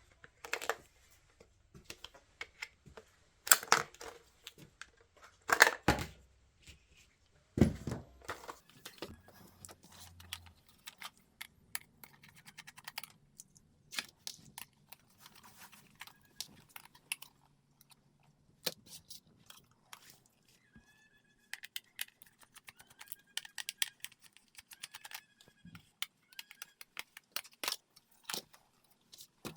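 Hands handling a small plastic toy robot: irregular clicks, taps and rattles of plastic parts, with a few louder knocks in the first several seconds.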